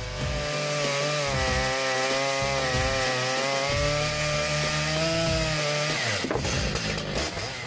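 Stihl MS881 two-stroke chainsaw with a long bar running at full throttle through a thick log round, its pitch sagging slightly under load. About six seconds in the cut finishes, the disc drops free and the engine note falls away.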